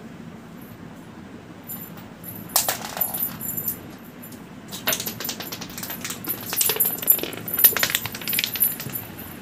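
Small plastic ludo token clattering and skittering across a concrete floor as kittens bat it around. There are two runs of quick rattling clicks: a short one about two and a half seconds in, and a longer one from about five seconds in until near the end.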